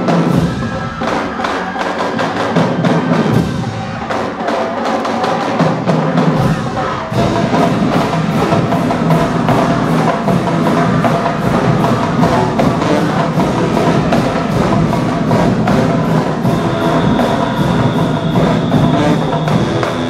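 Marching band of brass, sousaphones and drumline playing a dance tune over a steady drum beat. The low brass and bass drums come in fuller about seven seconds in, and a steady high tone sounds over the last few seconds.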